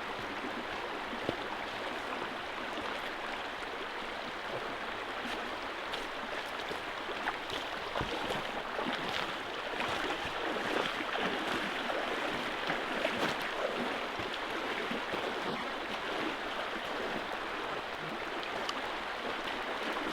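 River water flowing across a shallow ford: a steady, continuous rush of moving water, with occasional small splashes.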